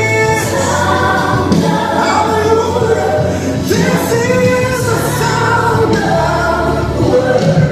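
Gospel music: a choir singing long held notes over a steady band accompaniment.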